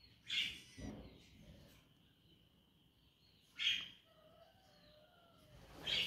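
Baby peach-faced lovebird giving three short, high chirps while being hand-fed from a spoon, with a soft thump about a second in.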